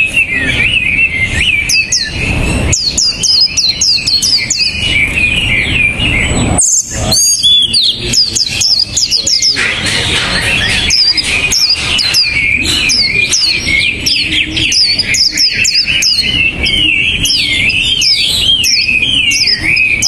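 Caged songbirds singing against each other: a continuous rapid, wavering warble overlapped by many sharp, high down-slurred whistled notes. The warble breaks off briefly about six seconds in, then resumes.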